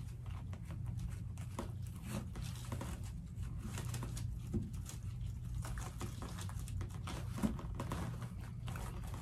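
Plastic deco mesh and ribbon rustling and crinkling as hands tie ribbon into a wreath with a pipe cleaner: irregular soft crackles over a steady low hum.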